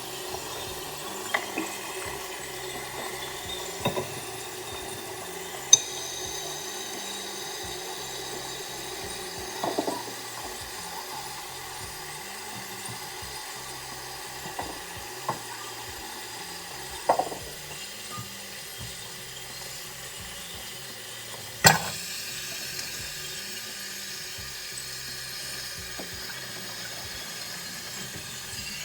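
Kitchen tap left running, a steady hiss of water, with a few sharp clinks and knocks of utensils and dishes scattered through it.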